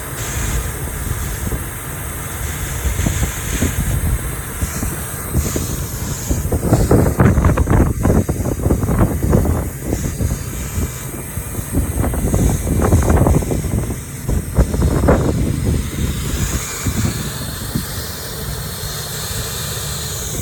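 Hand-held hot-air welder blowing a steady hiss as a TPO roofing patch is heat-welded around its edge. Heavier irregular rumbling comes in about six seconds in and dies away about ten seconds later.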